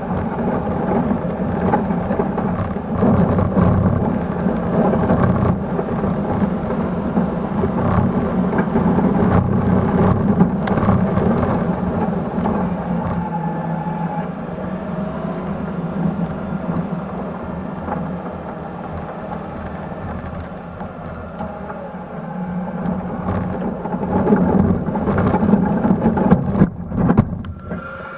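1996 Suzuki Carry mini truck's engine running under load as its plow blade pushes snow, with the rumbling crunch and scrape of snow and tires at the front wheel. The sound surges near the end and then drops off.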